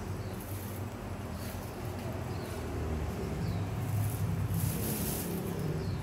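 Wooden spoon stirring broth in a steel stockpot, with a few brief scrapes, over a low steady rumble that grows louder about three seconds in.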